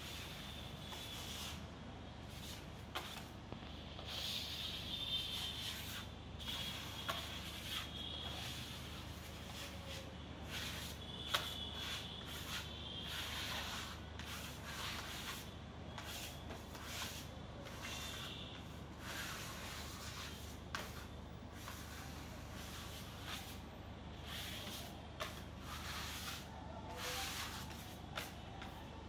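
Hand trowels scraping wet screeding compound across a wall in repeated strokes from two workers at once, with occasional sharp taps.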